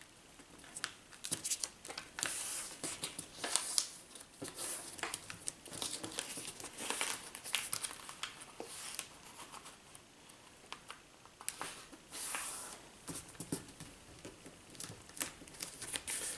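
A sheet of plain white paper rustling and crinkling in irregular short bursts as it is handled and folded by hand.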